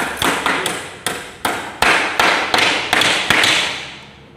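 Hammers nailing together a wooden packing crate: quick, irregular strikes from more than one hammer, each with a short ring, stopping about three and a half seconds in.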